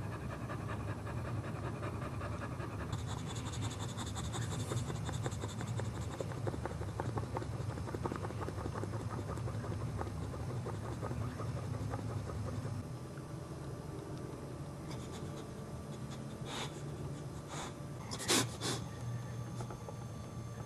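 Boxer dog in labour panting rapidly and steadily, the panting growing softer about two-thirds of the way through. A couple of brief sharp sounds come near the end.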